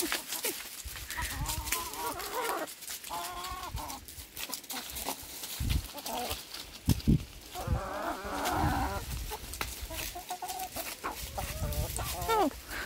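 Young chickens clucking and calling repeatedly in short pitched cries, with many small clicks around them.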